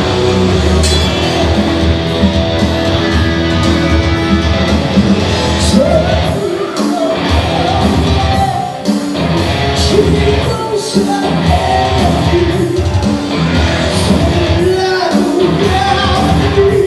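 Loud hard-rock music with a singing voice and a driving drum beat.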